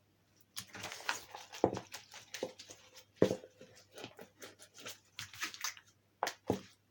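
Slime being stretched and squished by hand, giving irregular sticky clicks and pops, with a few sharper pops standing out.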